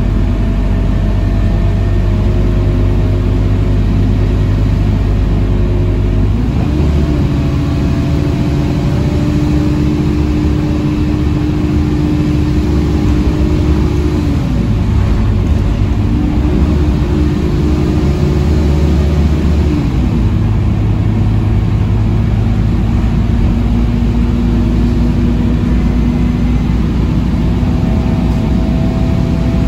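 Scania K230UB city bus heard from inside the passenger cabin: its 9-litre five-cylinder diesel engine running under way, with road and tyre noise. The engine note changes pitch a few times, falling about a quarter of the way in, dipping and climbing back around the middle, and falling again about two-thirds through.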